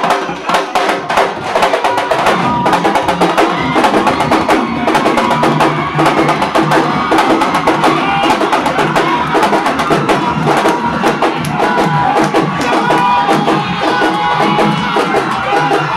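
Loud music with fast, dense drumming and a melody over it.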